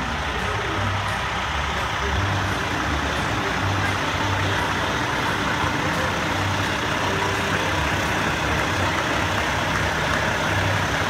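A large vehicle's engine idling, a low hum that swells and fades irregularly over steady outdoor noise.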